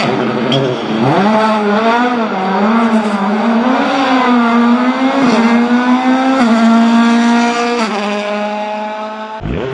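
World Rally Car's turbocharged four-cylinder engine revving hard as it drives through a corner, its pitch climbing and dropping over and over with throttle and gear changes.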